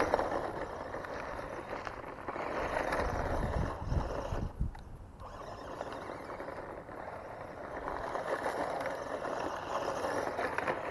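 GPTOYS S926 1:12-scale 4WD RC truck running on loose dirt: its electric motor and gears whine with rising and falling pitch as the throttle changes, over the noise of the tyres churning the ground. It eases off briefly about halfway through, then picks up again.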